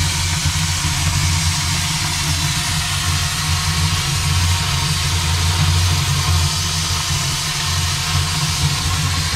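Steady low hum under a wide, even hiss from the firebox and draft of a 3/4-scale Case 65 hp steam traction engine being fired.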